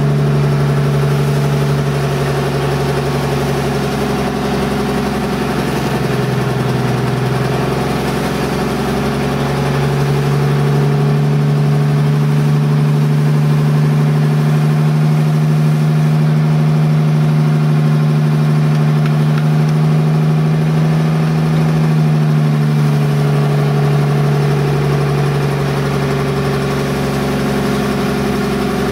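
Outrigger boat's engine running steadily under way. Its speed drops about six seconds in, picks up again a few seconds later and eases off slightly near the end, over the rush of water along the hull.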